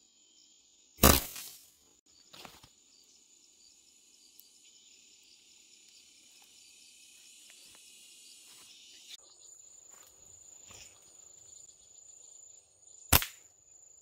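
Slingshot shots: a sharp snap of the released bands about a second in, a fainter knock a second and a half later, and another sharp snap near the end. Behind them runs the steady high buzz and chirping of forest insects.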